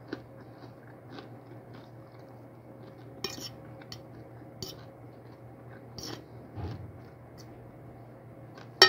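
Metal fork clinking and scraping against a plate of rice and fried fish in short scattered strokes, with one sharp, louder click near the end. A low steady hum runs underneath.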